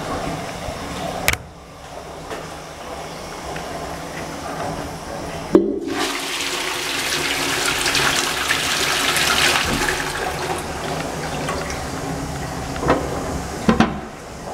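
Wall-hung Twyford Sola rimless toilet with a concealed cistern, flushed by its DVS sensor. A sharp click comes a little over a third of the way in, and then water rushes into the pan for about eight seconds. A few knocks come near the end.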